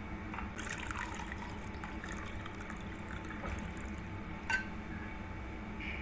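Warm herbal decoction poured from a steel pot through a mesh tea strainer into a glass: a faint trickle of liquid, with one light clink about four and a half seconds in.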